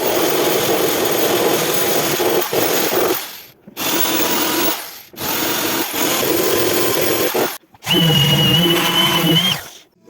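Handheld power tool running in four runs of a few seconds each, breaking off suddenly between them, the last with a steady high whine over it.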